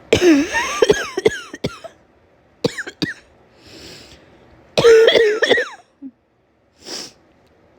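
A woman coughing in fits from a summer cold with a throat tickle: a run of several harsh coughs at the start, two short coughs about three seconds in, and another loud fit about five seconds in, with breaths in between.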